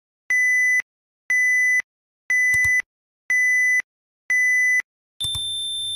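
Interval workout timer counting down: five short beeps, one a second, then a longer, higher beep about five seconds in that marks the start of the work interval.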